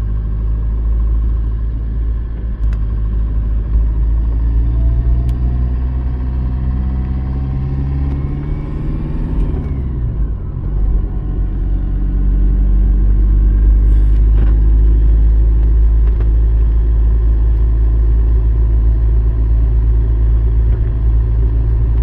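Car engine and road rumble heard from inside the cabin while driving. The engine note falls and dips briefly about ten seconds in, then runs steady and a little louder.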